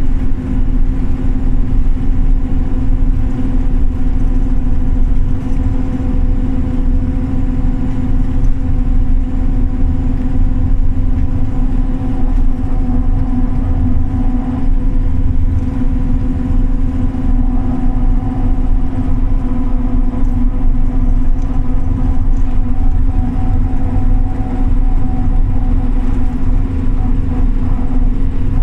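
Scania OmniLink CL94UA articulated city bus running under way, heard on board: a steady engine drone and road rumble with a constant hum over it.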